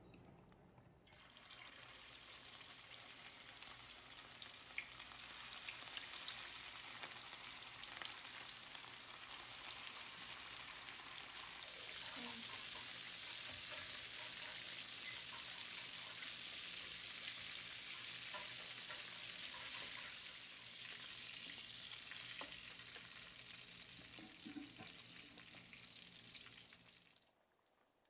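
Beef kebab patties shallow-frying in hot oil in a pan: a steady sizzle with scattered pops and crackles. It starts about a second in and cuts off suddenly near the end.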